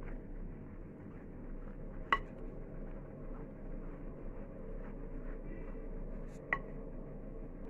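Spoon stirring flour and warm water in a mixing bowl, with two sharp ringing clinks of the spoon against the bowl, about two seconds in and again near the end, over a steady low hum.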